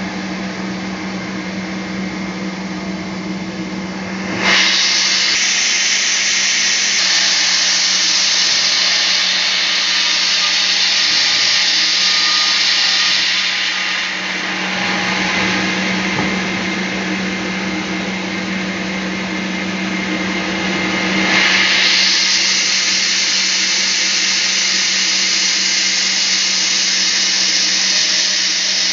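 Band sawmill running with a steady motor hum; the bandsaw blade bites into a teak log about four seconds in with a loud hiss of cutting, eases off partway through, then cuts loudly again near the last third.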